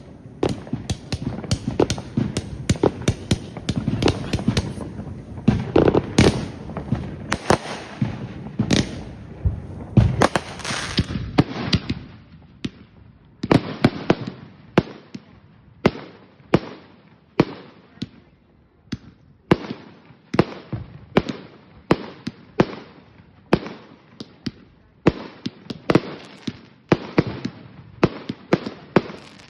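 Fireworks display going off. For about the first eleven seconds there is a dense run of bangs over a constant rumble. After that come separate sharp reports, about one or two a second.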